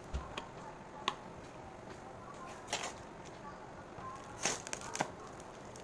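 Small cardboard box handled and pried open by hand: scattered sharp clicks and taps with short scraping rustles of cardboard, the longest scrape about three-quarters of the way through.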